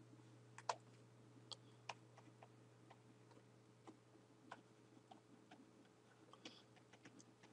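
Near silence broken by faint, irregular clicks and taps of a stylus on a pen tablet as words are handwritten, over a faint steady low hum.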